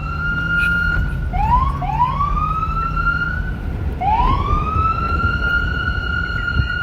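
Police car siren holding a high steady tone, dropping and sweeping back up to it three times: twice close together after about a second, then again about four seconds in. A low rumble runs underneath.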